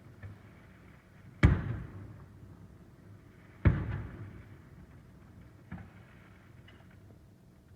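Aerial firework shells bursting: two loud booms a little over two seconds apart, each trailing off in a rolling echo, with a few fainter pops between and after.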